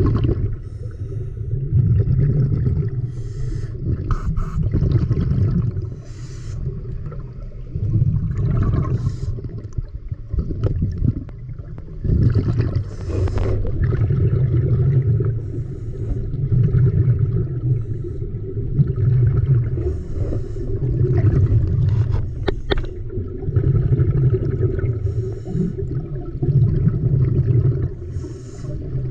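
Muffled rush and slosh of water around an action camera held underwater, swelling and fading in a slow rhythm every few seconds, with faint crackles.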